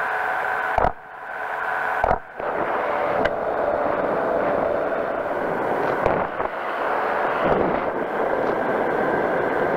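Powered parachute's engine and propeller running steadily in cruise flight, a continuous drone. The sound drops out briefly twice, about one and two seconds in.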